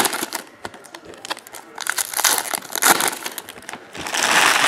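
Empty foil trading-card pack wrappers crinkling and crackling as hands push and scrunch them together, in several irregular bursts with sharp clicks, the longest and loudest near the end.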